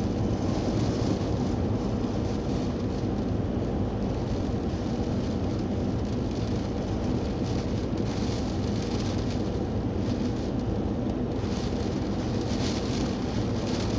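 Gale-force storm wind rushing steadily over rough, wind-driven sea, heavy in the low end, with gusts bringing louder hissing about eight and twelve seconds in.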